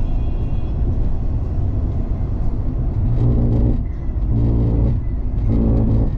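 Steady road and engine rumble inside a Mazda MX-5 (ND) roadster's cabin at expressway speed. In the second half, three short low buzzing hums, each about half a second long and about a second apart, come in over it.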